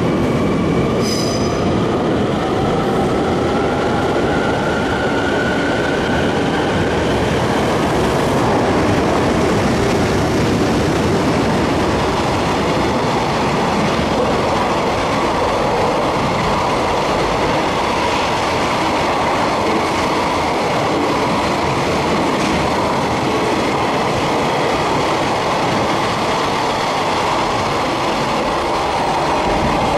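An EH500 electric locomotive and its long container freight train pass at speed, with a continuous loud rumble and clatter of wheels on the rails. A rising whine runs through the first several seconds as the locomotive goes by.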